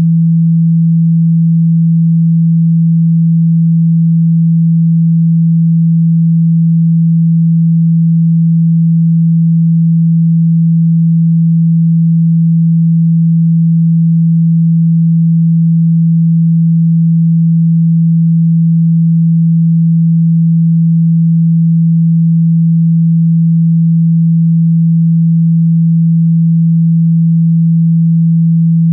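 A continuous low-pitched pure sine-wave hum, steady and unchanging: a synthesized water-ejection tone meant to vibrate a phone speaker and push out trapped water.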